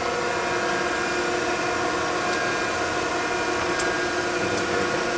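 Okamoto 1224 surface grinder running steadily under automatic cross feed, a constant machine hum with several steady whining tones. A few light ticks come through in the second half.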